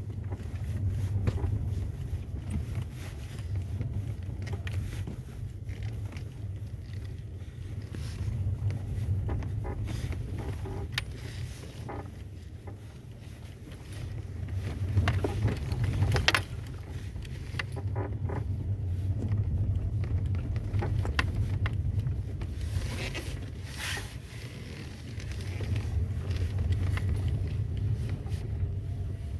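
Skoda Octavia A5 driving over uneven road: a steady low rumble, with repeated short squeaks and knocks as it goes over bumps, and a sharper, louder knock about halfway through.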